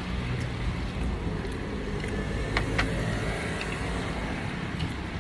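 Steady low background rumble, like traffic or room machinery, with a few light clicks.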